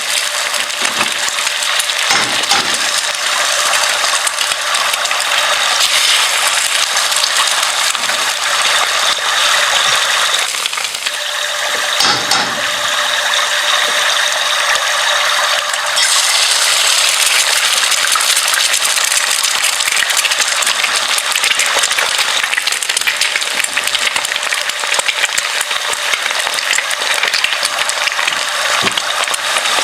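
Kitchen clatter: a dense, continuous rattling and clinking of small hard objects, growing brighter and hissier about halfway through.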